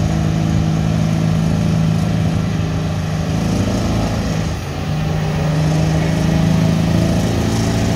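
Diesel pickup truck engine running hard under load as it pulls a weight-transfer sled. It holds a steady note, dips briefly about halfway through, then comes back up and holds again.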